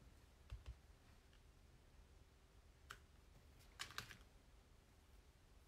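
Near silence broken by a few small taps and clicks of craft supplies being handled on a tabletop: two dull thumps about half a second in, a single click near three seconds, and a short cluster of clicks around four seconds.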